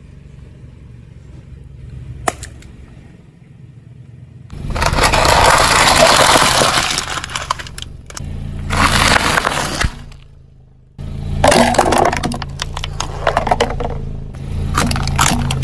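A car tyre rolling over and crushing plastic objects: three loud spells of crunching, cracking and crackling plastic, with a sharp click about two seconds in. The car's engine runs low underneath.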